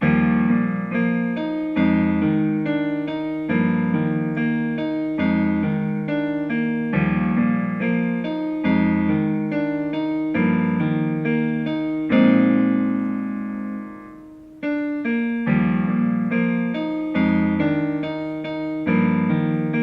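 Piano playing a melody over a low bass-and-chord accompaniment, with one hand's part played automatically by a piano-learning app in step with the player. About two-thirds of the way through, a chord is held and dies away before the playing picks up again.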